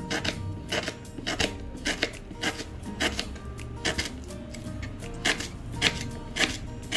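Knife slicing lemongrass thinly, a series of short sharp cuts about twice a second, against background music.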